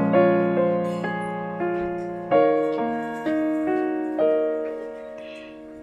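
Background piano music: a slow melody over held chords, each note struck and left to fade away.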